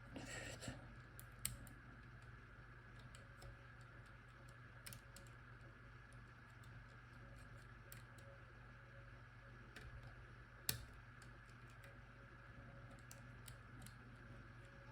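Faint, sparse clicks of a disc-detainer pick turning the discs inside an Abloy Classic padlock, with sharper clicks about a second and a half in and again near eleven seconds in, over a faint steady hum.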